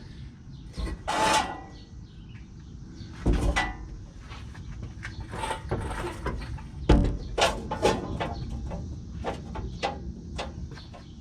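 Scattered metal knocks, clunks and scraping as a V8 engine hanging from a shop engine hoist is worked into the truck's engine bay; the loudest knocks come about three and seven seconds in.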